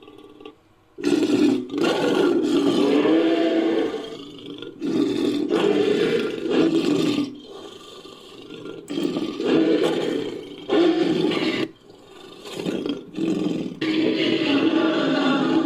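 Monster roar sound effect built from layered animal and monster recordings: a string of about six long, deep roars one after another, each separated by a short gap, starting about a second in.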